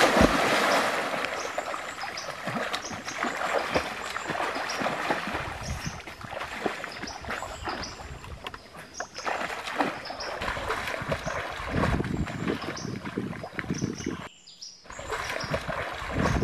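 Water splashing as a person plunges in, loudest at the start, then the churning splashes of his arms and legs as he swims.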